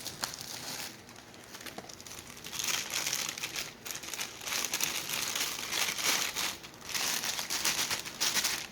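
Packaging crinkling and rustling in the hands as a camera lens is unwrapped. It comes in three stretches of a second or two each, starting about two and a half seconds in.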